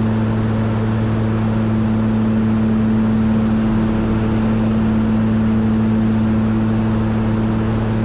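Piper Aerostar 700's twin piston engines and propellers in cruise flight, heard inside the cabin: a steady low hum with a higher overtone, over a constant rush of airflow.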